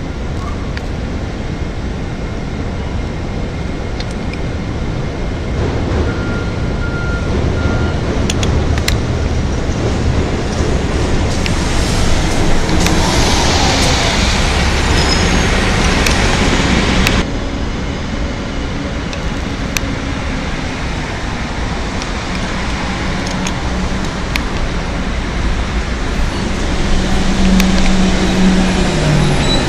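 City transit buses pulling past at the curb in street traffic, with steady engine and tyre noise. The noise swells to its loudest as a bus passes close about halfway through, then drops off suddenly. Near the end a low engine note falls in pitch.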